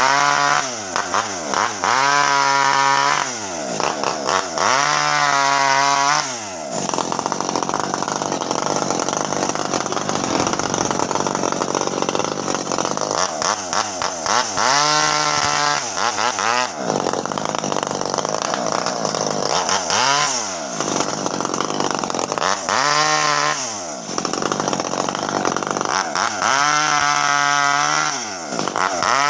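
Two-stroke chainsaw cutting through a cocoa tree trunk. The engine revs up and drops back about six times, with longer stretches of steady full-throttle running while the chain is in the wood.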